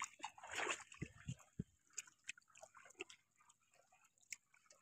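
Faint, irregular wet crackles and flicks from a fine-mesh fishing net heaped with small live fish and prawns as it is lifted and gathered by hand.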